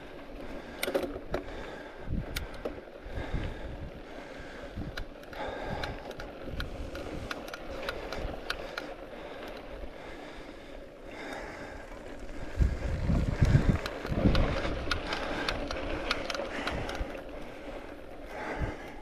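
Riding over rough ground: wind buffeting the microphone, with irregular clicks and rattles, and a spell of heavier buffeting about two-thirds of the way through.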